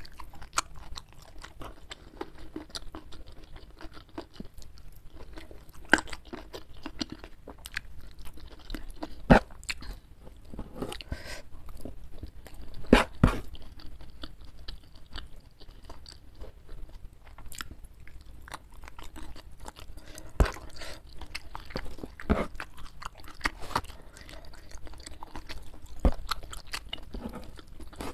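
Close-miked chewing of a hand-fed mouthful of rice with petai beans and sambal: a steady run of wet mouth clicks, with louder crunches every few seconds.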